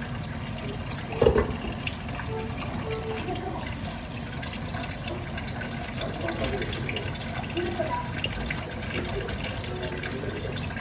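Kitchen tap running steadily into a sink, with a single knock about a second in.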